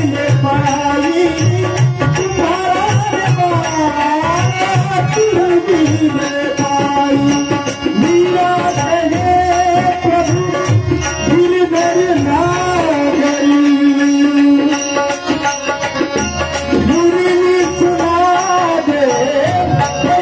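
Indian devotional music in raag Pahadi: a gliding, wavering melody without words over a hand-drum rhythm and a steady ticking of small cymbals.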